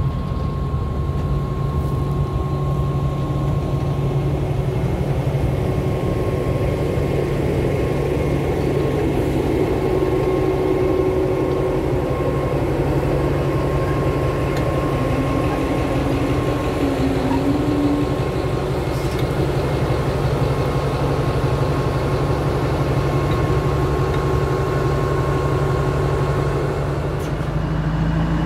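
Alsthom diesel-electric locomotive's engine running steadily at low power close by, a deep even drone with a thin steady whine above it, as the locomotive shunts freight wagons.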